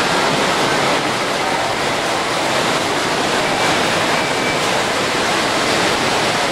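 Steady, even rushing noise with no distinct events: the background din of a busy exhibition hall.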